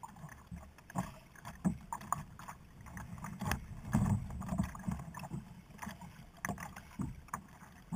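Irregular knocks and bumps on a sit-on-top kayak as a caught fish is handled on board, over a low muffled rumble of water and wind against the hull; the knocks are loudest about four seconds in.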